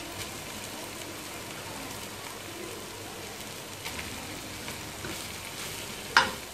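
Steady sizzle of vegetables frying in a metal pot as boiled rice is tipped in on top of them. A single sharp metallic clink against the pot near the end.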